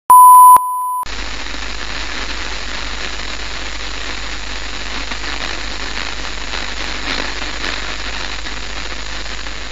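A 1 kHz test tone, very loud for half a second and then quieter, cuts off about a second in and gives way to a steady hiss of static, like an untuned television's snow.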